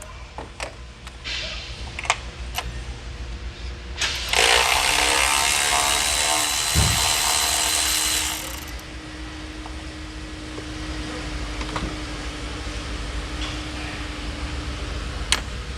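A handheld power tool runs for about four seconds, starting about four seconds in, as it backs out the 13 mm bolt holding the cam sensor on a Chrysler 2.7L V6. Light tool clicks come before it, and a low steady hum runs underneath.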